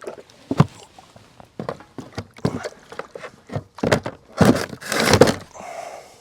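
Irregular knocks and clunks, then a louder scraping slide about four and a half seconds in, as a heavy 6-volt golf cart battery is lifted and set down into its battery box.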